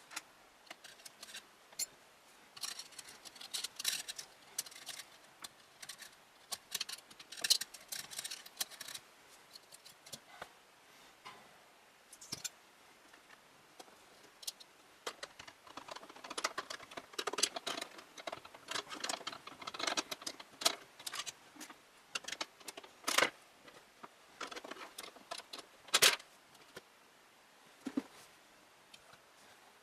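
Irregular clicks, taps and light rattles of small hard plastic and metal PC parts being handled and fitted, busiest in two stretches, with two louder sharp knocks near the end.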